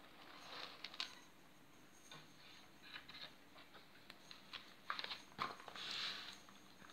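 Maine Coon kittens moving about at a litter box: faint scattered clicks, taps and short scratchy rustles, with a longer rustle about six seconds in.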